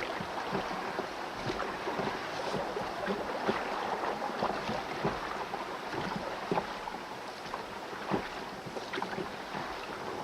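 Rowboat being rowed: oars dipping and water splashing and lapping against the hull, with many small splashes and knocks over a steady wash of water.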